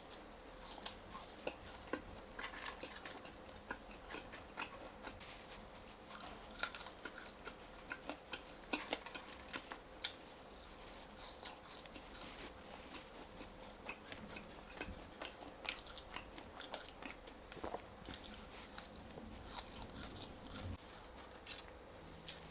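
A person biting and chewing french fries, with irregular crisp crunches and mouth clicks.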